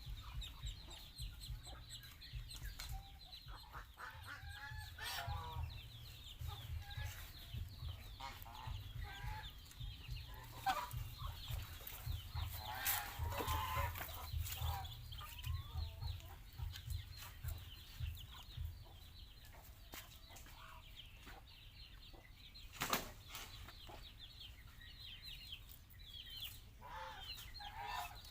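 A flock of domestic geese calling with many short, overlapping calls, over a steady low rumble. A sharp knock stands out about two-thirds of the way through.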